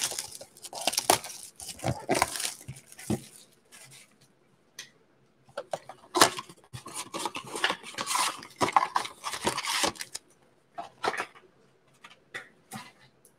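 A cardboard trading-card blaster box being torn open by hand and its packs pulled out. There are bursts of tearing and rustling in the first few seconds and again from about six to ten seconds in, then a few light taps as the packs are set down.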